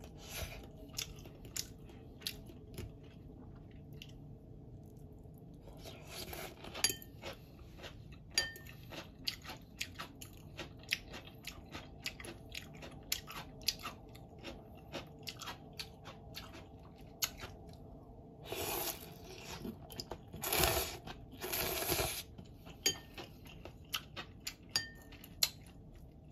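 Close-up eating sounds: wet chewing of Indomie instant noodles with many small mouth clicks, and a few short slurps, two or three of them close together about three-quarters of the way through.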